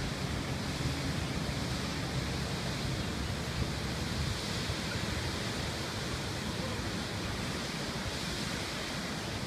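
Steady rushing of the Big Sioux River's waterfalls, an even roar of water with a low rumble underneath.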